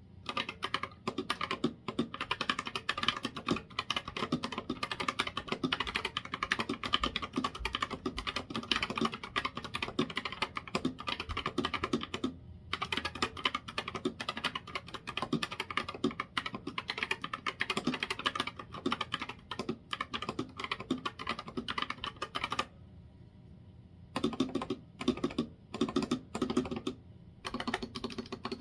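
Typing sound test on a Ractous RTK61BP 60% mechanical keyboard with Gateron red optical switches, mostly stock and in an unfoamed case: fast, continuous clacking of keys, which pauses briefly near the end and then comes back in short bursts. The owner calls the sound pretty terrible, with a lot of spring ping from the stock switches.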